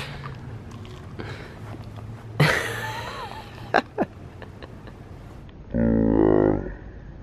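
Wordless voice sounds while someone is being fed from a toy excavator's bucket. About two and a half seconds in there is a short noisy burst with a brief cry in it. Near the end a man gives a loud, drawn-out wordless vocal sound lasting about a second, wavering in pitch.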